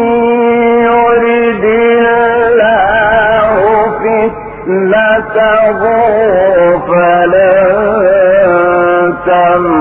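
A man's voice reciting the Quran in the melodic mujawwad style, holding long, ornamented, wavering notes. It pauses briefly for breath about four and a half seconds in and again near the end.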